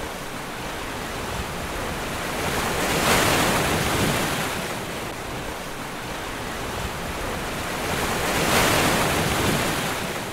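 Ocean surf: waves washing in, swelling up twice about five seconds apart over a steady rushing hiss.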